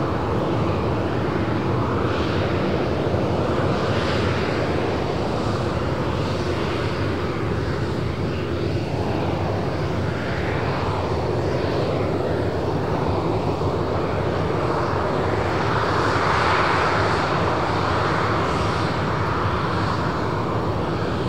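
Boeing 737-800's CFM56-7B turbofan jet engines running steadily with an even rushing sound, swelling slightly about three quarters of the way through.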